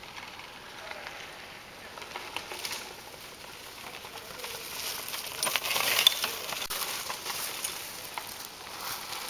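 A mountain bike rolling past on a dirt trail strewn with dry leaves: the tyres crackle over the leaves, growing louder as it nears, peaking with a few sharp clicks about six seconds in, then fading as it rides away.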